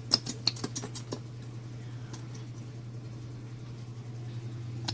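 A quick series of small clicks and taps in the first second or so from plastic glitter-glue bottles being squeezed and handled, then a few fainter ticks over a steady low hum.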